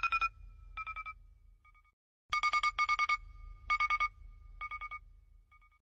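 Electronic alarm tone: one steady pitch with an overtone, pulsed rapidly in short bursts that repeat about once a second. The bursts are loudest a little after two seconds and fade toward the end.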